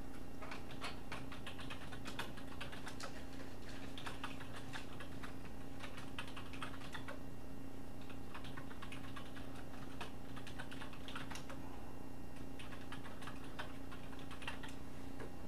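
Typing on a computer keyboard in irregular runs of keystrokes, over a steady low hum.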